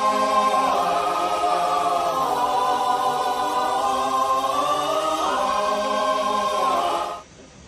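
Music: a choir holding long chords that shift slowly in pitch, cutting off about seven seconds in.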